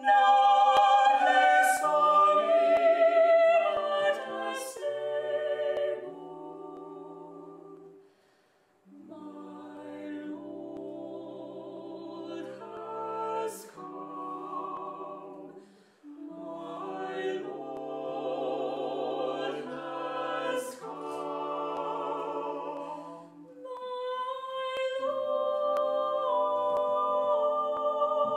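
Mixed vocal quartet (soprano, alto, tenor and bass) singing unaccompanied in close harmony. A loud phrase opens, then softer phrases follow after a brief pause about eight seconds in, swelling again before a sustained chord is held near the end.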